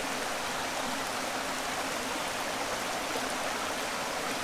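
Steady rush of a small creek's running water.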